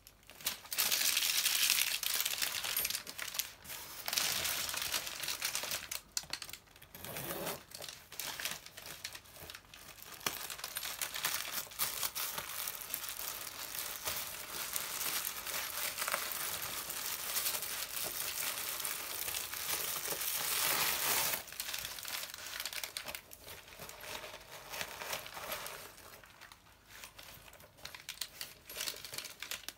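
Paper stuffing and plastic packing crinkling as they are handled and pulled out of a new handbag. The crackling is dense and busy for most of the stretch and becomes sparser and quieter after about two-thirds of the way through.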